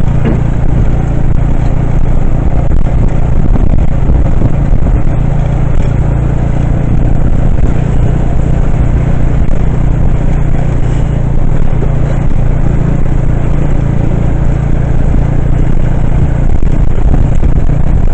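Steady, loud low rumble of a moving motor vehicle heard from on board, with traffic around it.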